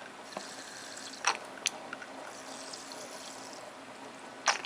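Lighter fluid trickling as it is poured into the filler cup of a Zippo hand warmer, with a few light clicks of the container being handled.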